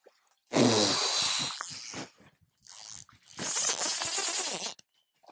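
Fly reel paying out line to a running trout, its drag giving a loud rasping buzz in two spells, the first about half a second in and the second from about three and a half seconds: the fish is stripping line down to the backing.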